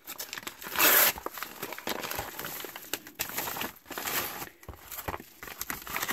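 A padded paper jiffy bag being torn open, with a loud rip about a second in, then crinkling and rustling of the paper mailer and plastic bags as the contents are pulled out.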